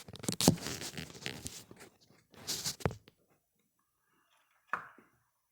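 Wooden hive-box boards being handled and knocked together as the joints are set, with a few sharp knocks, the loudest about half a second in, a cluster a little after two seconds, and one more near the end.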